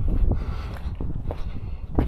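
Footsteps and a few irregular knocks and clunks of things being handled, over a low rumble.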